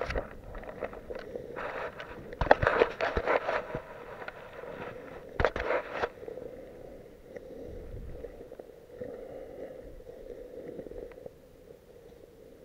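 Footsteps on a wet gravel track, with clusters of clicks and scrapes about two seconds in and again about five and a half seconds in, fainter after that.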